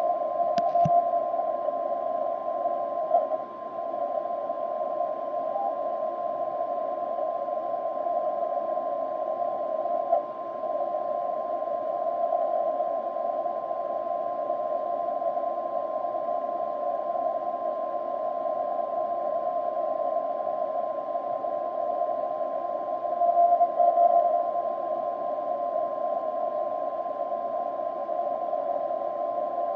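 Elecraft K3 transceiver receiving on the 10-metre band at 28.0175 MHz. Its speaker gives a steady hiss of band noise squeezed into a narrow pitch range by the receive filter, with a thin steady whistle of a carrier tone above it. There is no clearly keyed signal.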